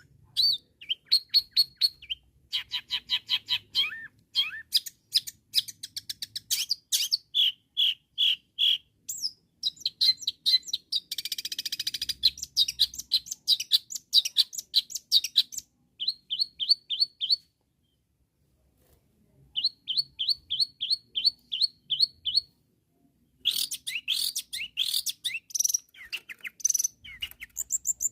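Long-tailed shrike singing loudly and restlessly: runs of quick, sharp repeated chirps and trills, with a pause of about two seconds past the middle. It is a vigorous challenge song of the kind that provokes rival shrikes to answer.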